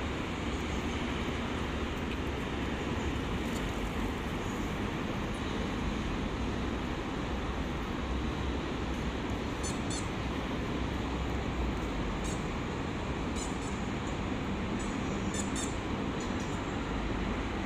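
Steady road traffic noise from passing cars, with a few short, high squeaks around the middle.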